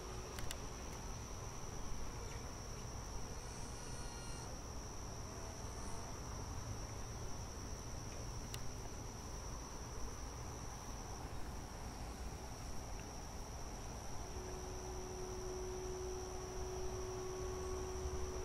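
Steady high-pitched chorus of insects over a low outdoor hiss. About fourteen seconds in, a single held clarinet note joins, low and faint.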